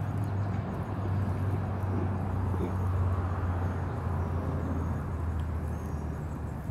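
Steady low rumble of road traffic, swelling a little about three seconds in.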